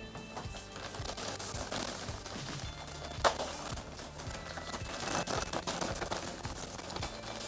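A parcel's packaging crinkling and crackling as it is opened by hand, with one sharp snap about three seconds in. Quiet background music underneath.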